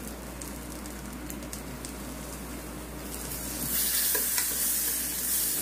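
Butter sizzling and crackling as it melts in the hot non-stick pan of an electric hot pot grill, with a spoon stirring it. The sizzle swells louder a little over halfway through as another spoonful of butter goes into the pan.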